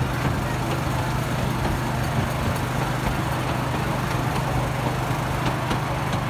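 Small amusement-park ride train running along its track, with a steady low engine hum heard from aboard a carriage and a few faint clicks.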